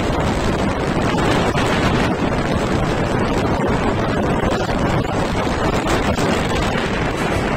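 Wind buffeting the microphone of a camera moving along a road, a steady loud rushing with the rumble of the moving vehicle underneath.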